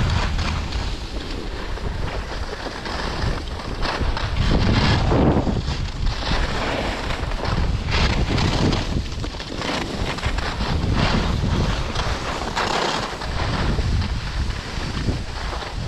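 Wind buffeting the microphone of a skier's camera during a downhill run, with skis hissing and scraping over packed groomed snow. The rushing noise rises and falls every couple of seconds.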